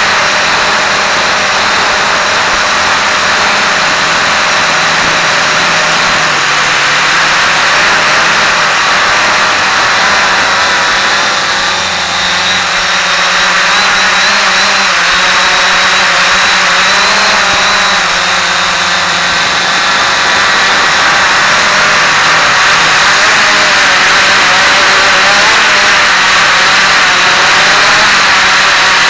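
Quanum Follow Me quadcopter's electric motors and propellers buzzing steadily in flight, with a hissing rush and a pitch that wavers slightly.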